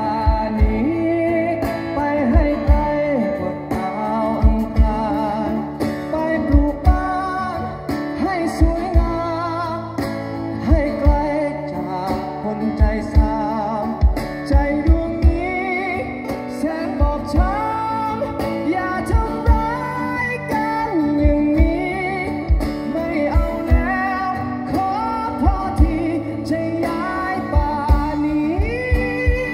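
Live band playing a song: acoustic guitars and singing over a drum kit with a steady kick-drum beat.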